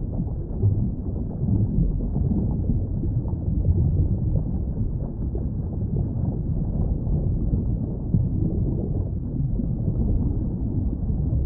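Underwater ambience: a steady, muffled low rumble and wash with nothing high in it, as heard with the ears under water.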